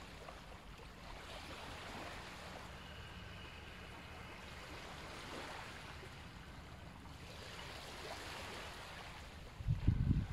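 Ujjayi breathing: slow, audible breaths through the nose with the mouth closed and the back of the throat slightly narrowed, each a soft hiss that swells and fades, about three in a row. A sudden low rumble comes in near the end.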